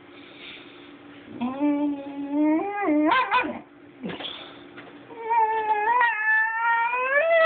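Basenji puppy vocalising instead of barking: two long, wavering whine-like calls, each rising in pitch at the end, with a short breathy sound between them.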